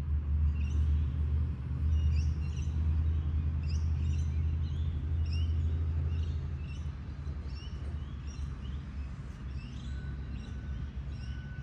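Outdoor ambience: small birds chirping over and over above a steady low rumble, which eases off after about six seconds.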